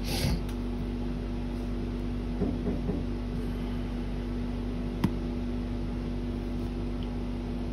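Steady electric hum of the engine cooling fan running fast, with a sharp click about five seconds in and no starter cranking: the VW Touareg 3.0 TDI will not crank, as its engine ECU is not communicating.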